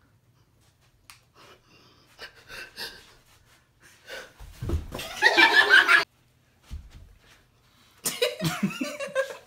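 A woman staging a faint: a few faint breaths and small sounds, then about four and a half seconds in a low thud and a loud noisy burst lasting over a second, a smaller thump shortly after, and her laughing near the end.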